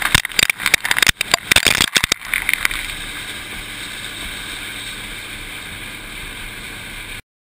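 Shelled corn kernels pouring onto a grain pile, a rapid irregular patter of hits that stops about two seconds in. A steady noise carries on after it, then the sound cuts off suddenly near the end.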